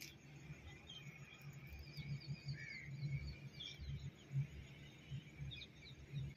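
Faint scattered bird chirps over a low, uneven rumble.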